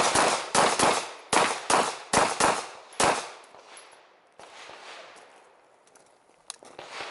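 Semi-automatic pistol fired in a rapid string, about eight shots within three seconds, each trailing off in an echo.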